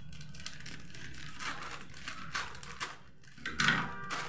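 Scissors cutting open a plastic snack packet, the packet's film crinkling and rustling as it is handled, with a louder crinkle about three and a half seconds in.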